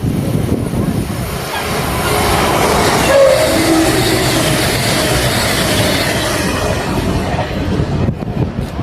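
Train passing on the rails: a loud, steady rumble of wheels and cars that swells about two seconds in, with a brief whine around three seconds in.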